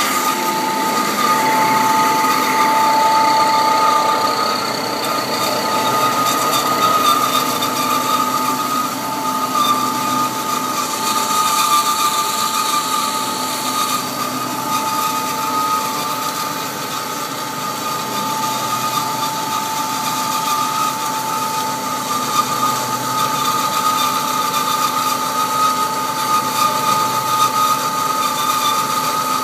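Bomar Individual 510.330 GA automatic horizontal metal-cutting bandsaw running, a steady machine hum carrying two high steady tones over a hiss. The lower of the two tones fades from about four seconds in and comes back strongly after about fourteen seconds.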